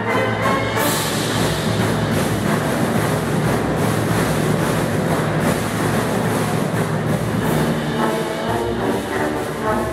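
Marching band of trumpets, trombones, euphoniums, tubas and concert percussion (timpani, bass drum) playing. About a second in, the whole band swells into a loud, dense passage, and clear held brass chords come back near the end.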